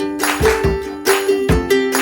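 Background music: a bright plucked-string tune, ukulele-like, over a steady beat.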